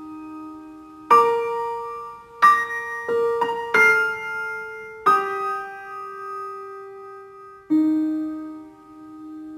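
Slow, gentle piano background music: notes struck a second or two apart and left to ring out, with a quick run of notes about three to four seconds in.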